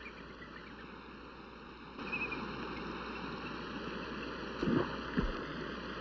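Steady rushing noise of moving water, getting louder about two seconds in, with two dull thumps near the end.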